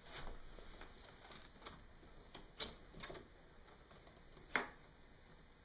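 Small scattered clicks and ticks of a screwdriver and a little screw being worked into a laptop screen's mounting, with two sharper clicks about halfway through and about four and a half seconds in.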